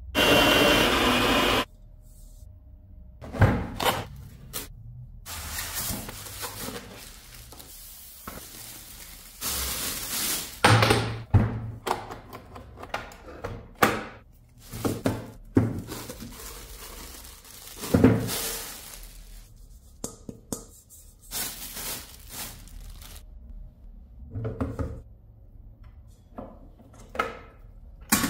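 Irregular knocks, clicks and clatter of stand-mixer parts being handled and fitted: the stainless steel bowl, the wire whisk and the tilting head. There is some rustling of plastic wrap, and the motor does not run.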